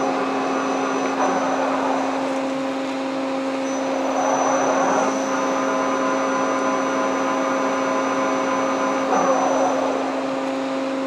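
CNC lathe headstock and spindle drive running, a steady machine hum with a fainter whine above it. The noise swells briefly three times, which fits the spindle changing speed or direction.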